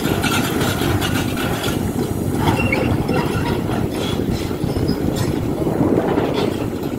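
Hidromek 390LC H4 excavator running under load, its engine a steady loud rumble, with scattered knocks and brief squeals as the ripper works through marble rubble.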